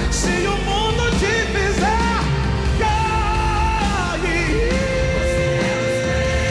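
A man sings a gospel worship song into a microphone over a live band, with short bending vocal runs and then a long held note starting a little past halfway.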